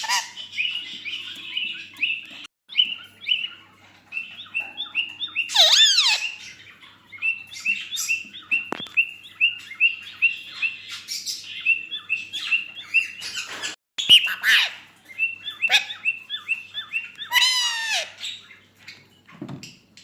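Blue ringneck parakeet chirping in a long run of short, quick notes, with two louder sweeping squawks, one about a third of the way in and one near the end.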